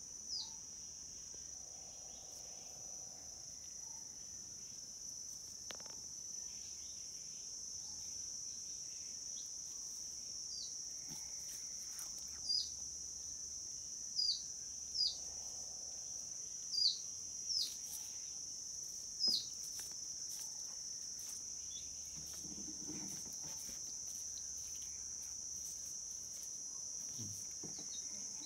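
Steady high-pitched insect drone, with a handful of short falling chirps standing out above it between about 11 and 19 seconds in.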